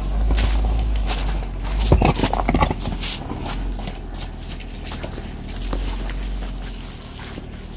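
Footsteps and a Jeep Wrangler's 33-inch all-terrain tires crunching and crackling over dry leaves and loose rocks, above a steady low rumble. There is a louder burst of crackling about two seconds in, and the sound gets quieter toward the end.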